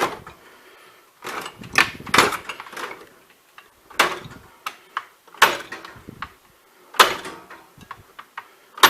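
Steel drawers of a Bahco tool chest being slid open and pushed shut, a rattling slide followed by a series of sharp metal bangs about every one and a half seconds as the drawers hit home.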